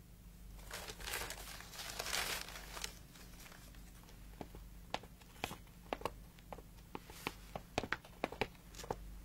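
Rustling and crinkling for the first few seconds, then a run of sharp, irregular clicks and taps, like footsteps and small knocks on a hard floor, growing more frequent toward the end.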